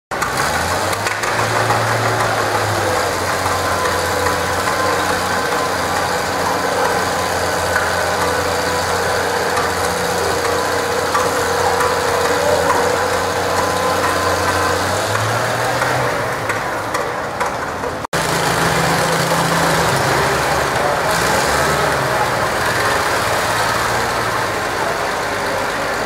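Old farm tractor's engine running steadily under load during a deadweight pull. Its note shifts a little about two-thirds of the way through, and the sound cuts out for an instant just after, then goes on.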